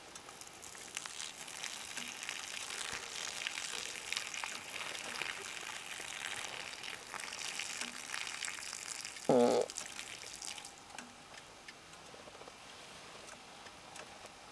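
A man urinating onto grass: a steady splashing hiss that starts about a second in and stops abruptly after about ten seconds. A short pitched sound, the loudest moment, comes about nine seconds in.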